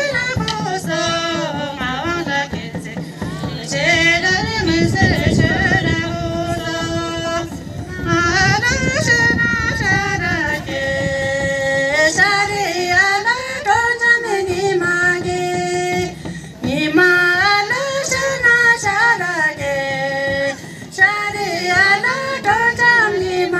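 A group of women singing a Kinnauri folk song together, in long held notes that waver and glide between phrases, with short breaks between the lines. A rough low rushing noise rises under the singing twice, about four and eight seconds in.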